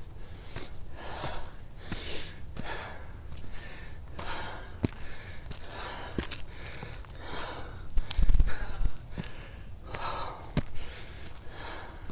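A hiker breathing hard on a steep climb, quick heavy breaths a little more than one a second, with the odd light tick of footsteps on the dirt. A loud low rumble on the microphone about eight seconds in.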